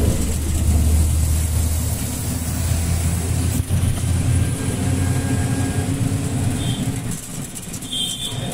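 Engine of a three-wheeled passenger rickshaw running steadily under way, a low hum heard from inside its open passenger compartment along with road noise.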